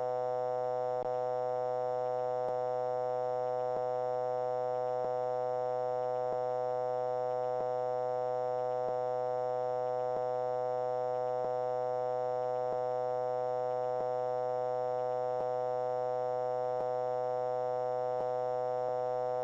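A steady synthetic electronic buzzing tone from the reconstruction's cockpit audio, with a faint click about every 1.3 seconds.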